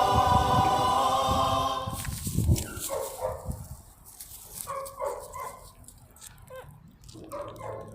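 Choir-style background music ends about two seconds in, and a dull thump follows. Then a young goat kid bleats in short, thin cries, about half a dozen of them spread irregularly.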